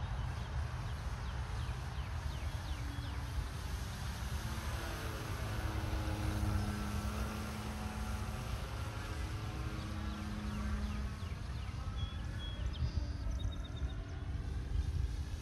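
Electric motor and propeller of a 1/6-scale Balsa USA Sopwith Pup RC biplane droning as the model flies past overhead, the pitch rising and falling as it passes, over a low wind rumble on the microphone.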